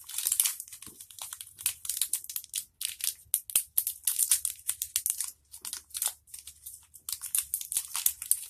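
Small wrapper on an individually packaged snack being crinkled and torn open by hand. There is a dense run of crinkles and sharp crackles that stops abruptly at the end.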